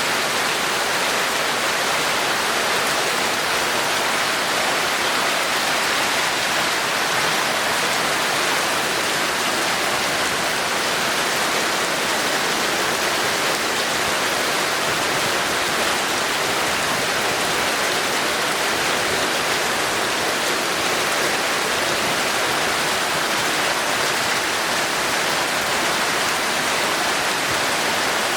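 Torrential rain falling steadily: a dense, even hiss with no single drops standing out.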